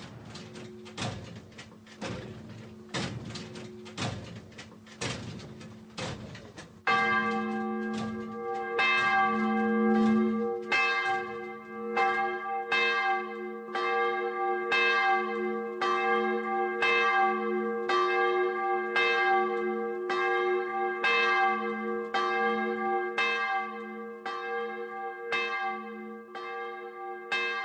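Church bell swinging in a timber belfry, rung in steady strokes about every two-thirds of a second. The strokes are soft at first and become much louder and fuller, with a long ringing hum, about seven seconds in.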